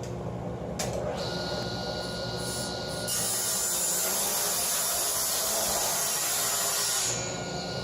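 Table saw running steadily, its blade cutting through an oak board for about four seconds starting about three seconds in, the cut much louder than the motor alone.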